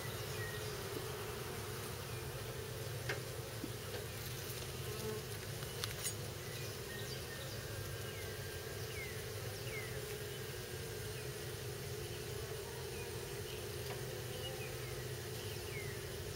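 Honeybees buzzing as a steady hum around an opened hive, agitated by the inspection, with a few light knocks as a frame is worked back into the box.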